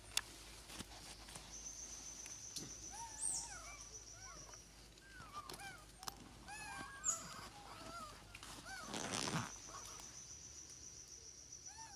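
Forest ambience: a run of short, arching chirp calls over a steady high-pitched drone, with scattered leaf-litter clicks and a louder rustle near the end.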